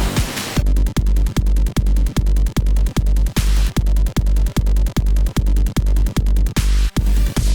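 Headbanger-style electronic dance track: a noise build-up ends about half a second in and drops into rapid, evenly spaced kick-drum hits over heavy sub-bass, with a brief break near the end.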